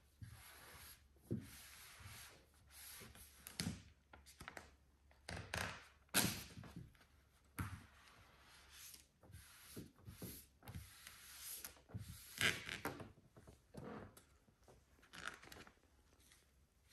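Microfiber towel rubbing and pressing vinyl wrap film down onto a car hood in irregular strokes, with the stiff film rustling and a few soft knocks.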